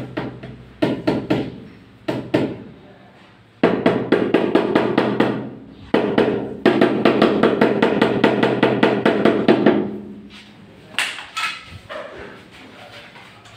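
Rubber mallet tapping a large wall tile to bed it into the adhesive: a few single knocks, then quick runs of rapid taps in the middle, then scattered knocks again near the end.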